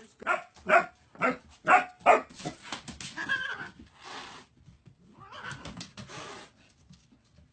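A dog barking, a quick run of about five barks in the first two seconds, followed by two longer rough, hissy noises.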